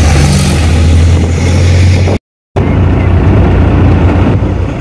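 A car driving along a rough road, heard from inside the cabin: a steady low engine and road hum under a wash of tyre and wind noise. The sound drops out to dead silence for a split second about two seconds in.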